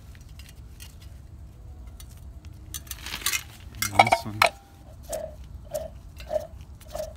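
Cast-iron tractor water pump and fan parts clinking and clanking as they are handled on concrete, with a loud cluster of metal knocks about three to four seconds in.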